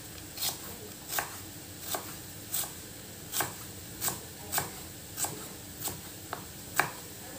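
Kitchen knife slicing an onion on a cutting board: a dozen or so crisp knocks of the blade hitting the board, about one every two-thirds of a second, the loudest near the end.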